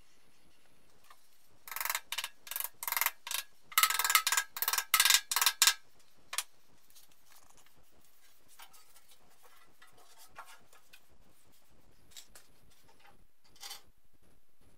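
A quick run of about a dozen sharp metallic clinks over some four seconds, coming faster and louder toward the end, then one more clink; after that only faint handling noises and a brief clatter near the end.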